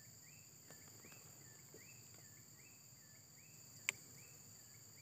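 Faint insect chorus: a steady high-pitched buzz, with a short chirp repeating about every 0.8 seconds. One sharp click comes nearly four seconds in.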